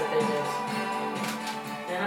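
Music playing from a compact hi-fi stereo system, with sustained notes held steady.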